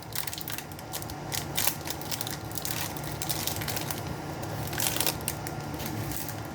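Trading cards and their plastic wrapper being handled: a string of small clicks, rustles and crinkles as cards are slid and flipped through the pack.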